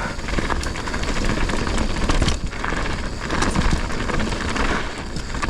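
Mountain bike rolling fast down a rough dirt trail: tyres crunching over dirt and rock with constant rattling and clatter, and wind rumble on the microphone.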